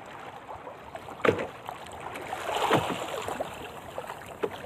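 Choppy water lapping and slapping against a small wooden outrigger canoe, with a sharp knock against the hull about a second in and a louder wash of water about halfway through.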